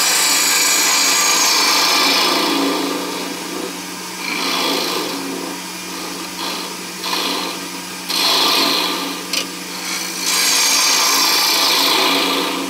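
Bowl gouge cutting into a spinning oak blank on a wood lathe, hollowing its centre: a loud hiss of shavings coming off in passes, a long cut at the start, several shorter ones in the middle and another long cut from about ten seconds in. Under it runs the steady hum of the lathe.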